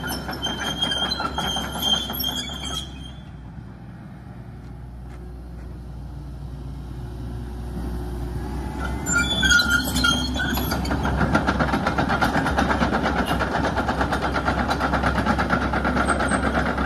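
Hitachi ZX130LCN-5 long-reach excavator tracking on concrete: diesel engine running, steel tracks clanking and squealing. It eases off for a few seconds after the start, builds again with a squeal about nine seconds in, then runs steadily with a fast, even clatter.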